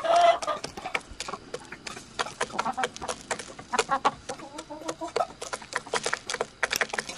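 Domestic hens clucking while they peck at scattered grain, with many quick, sharp pecking taps; the loudest call comes right at the start.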